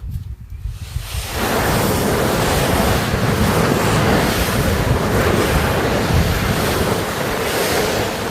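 Foley effect: a loud, steady rushing noise like surf, coming in sharply about a second in over a low rumble.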